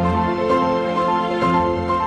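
Background music: slow, gentle sustained notes changing in a steady melody over a soft, regular beat.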